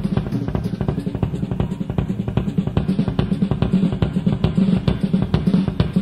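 Live rock band recording with the drum kit playing fast and busy over a sustained low bass line, taped from a radio broadcast onto cassette.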